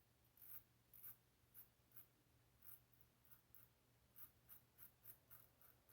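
Above the Tie R1 safety razor with a Treet Platinum blade scraping over lathered skin in faint, short buffing strokes, about a dozen quick scrapes with brief pauses between them. A low steady hum runs underneath.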